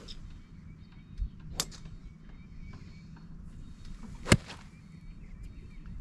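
Golf iron striking a ball off turf: one sharp crack about four seconds in, the loudest sound here. Two fainter sharp clicks come earlier, one at the very start and one about a second and a half in.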